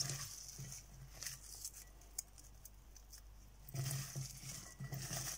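Sliced red onions being rubbed and tossed by hand in a glass mixing bowl with chopped herbs and chilli: soft, uneven rustling and squishing, a little louder near the end. The onions are being worked until their layers come apart.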